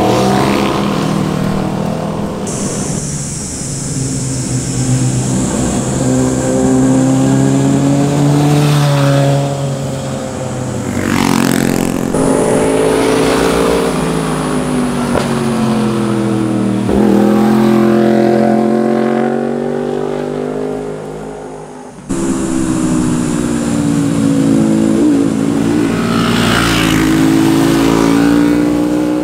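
Several motorcycles riding past one after another through a tight bend, engines rising and falling in pitch as they accelerate, with a quick drop in pitch as one passes close about eleven seconds in. The sound cuts abruptly to another pass about two-thirds of the way through, and a steady high-pitched buzz runs in the background for stretches.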